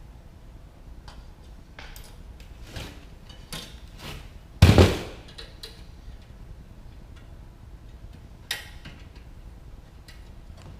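Scattered small metallic clicks and scrapes of 14-gauge solid wire being bent, twisted and tied onto a truck seat's spring frame, with one loud clank about halfway through and a sharper knock a few seconds later.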